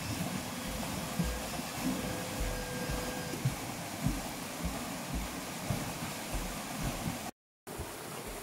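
River water rushing and splashing around a waterwheel's paddles as the wheel turns in the current, with irregular low thumps. A faint steady hum in the first few seconds, and the sound cuts out briefly near the end.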